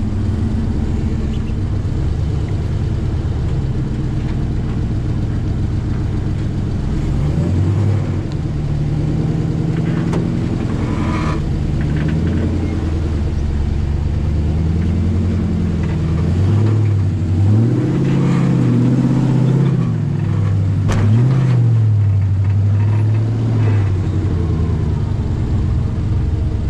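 Off-road buggy's engine running under load, its pitch rising and falling with the throttle as the buggy crawls up and over rock, with a couple of sharp knocks from the chassis.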